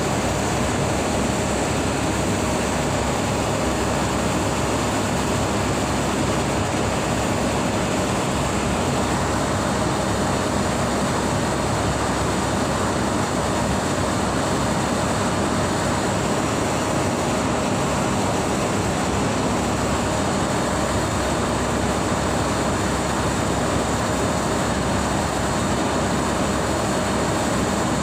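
Steady running noise of HVAC equipment: an even fan rush with a few faint held hums, unchanging throughout.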